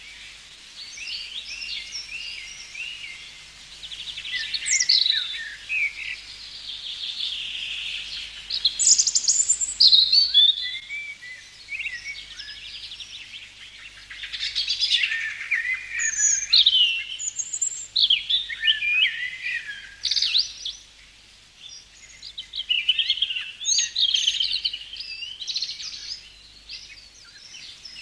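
Songbirds singing: a run of varied warbling phrases with quick whistles, trills and rising and falling notes, coming in bursts with short pauses between them.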